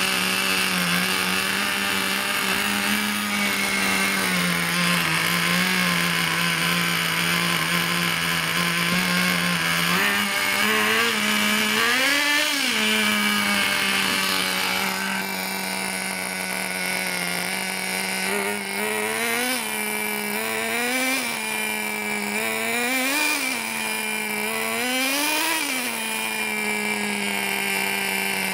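Small nitro (glow-fuel) engine of an RC monster truck running steadily at a high idle, then revved in a handful of short blips from about ten seconds in, each rising in pitch and dropping back.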